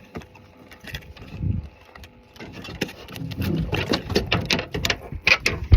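Irregular clicks, knocks and rattling handling noises, sparse at first with a dull thump, then coming thick and fast in the second half.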